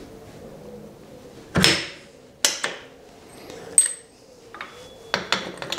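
Metal clinks and knocks as the steel lathe toolpost is seated on its base and its top washer and nut are fitted; a few separate strikes, some ringing briefly. Near the end, quicker clicks begin as the new hardened pawl starts clicking over the ratchet.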